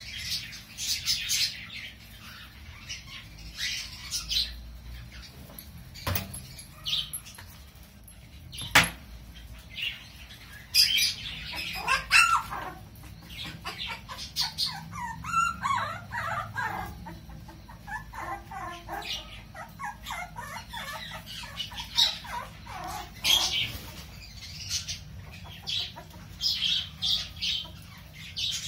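Pomeranian puppies squeaking and yipping as they play, in short high-pitched calls scattered throughout, with two sharp knocks about six and nine seconds in.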